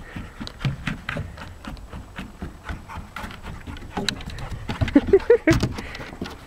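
A dog's paws pattering and claws clicking on a plywood subfloor as it runs around, in quick irregular taps. About five seconds in come a couple of short voice-like sounds and a sharp knock, the loudest moment.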